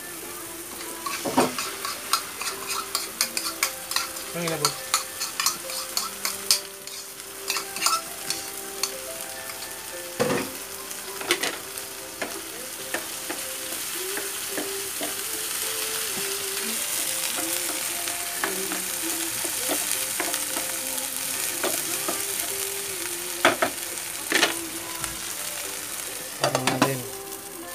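Chopped onion and tomato sizzling in a nonstick frying pan while a wooden spatula stirs and scrapes, knocking against the pan many times in the first half. The sizzle swells in the middle, and a few more knocks come near the end.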